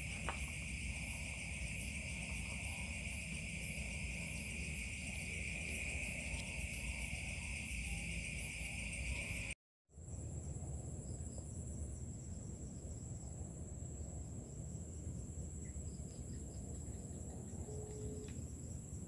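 Night insect chorus: a steady, high, continuous trill with faster pulsing above it, over a low rumble. Just before halfway the sound cuts out for a moment, and a different, higher-pitched insect chorus follows.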